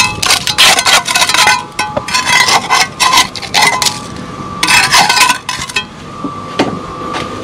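A metal tool scraping and chipping at a badly rusted steel lintel, flaky rust cracking away in quick rattling bursts that thin out to single clicks for the last couple of seconds. The rust is thick enough to push a trowel into, and the steel is corroded through.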